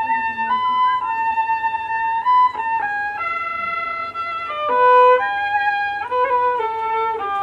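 Background music: a fiddle playing a slow melody of long held notes, changing pitch about once a second.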